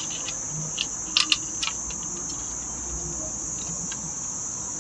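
Steady high-pitched chirring of crickets. A few light clicks and taps come about a second in.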